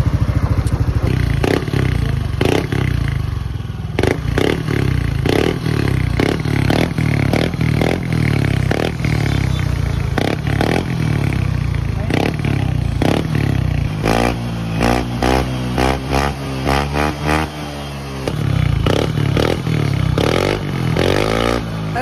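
Yamaha NMAX V2 scooter's 155 cc single-cylinder engine running through an aftermarket MT8 muffler with stainless tip: idling, with repeated short throttle blips, and a longer run of rising and falling revs about two-thirds of the way through.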